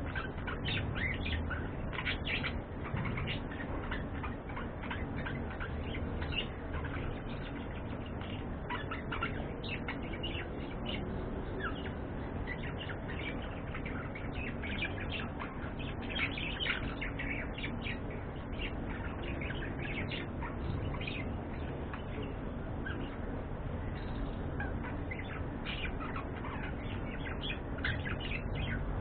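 Pet budgerigars chirping and chattering, with many short, quick chirps all through, over a steady low hum.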